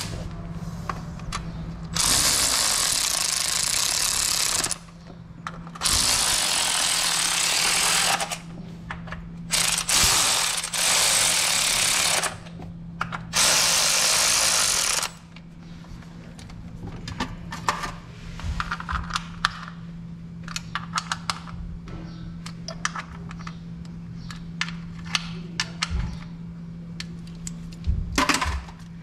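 Power ratchet running in four bursts of two to three seconds each in the first half, driving the bolts on a Toyota Tundra V8's valve cover and coils. After that, rapid ratchet clicks and metal tools clinking, over a steady low hum.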